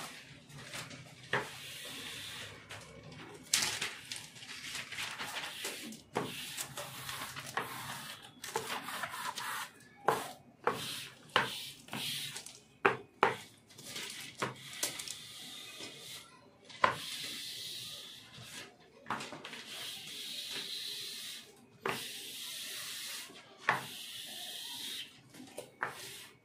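Plastic squeegee rubbing and scraping over a self-adhesive vinyl sheet as it is pressed flat onto a kitchen counter, in repeated hissy strokes with scattered sharp clicks and knocks.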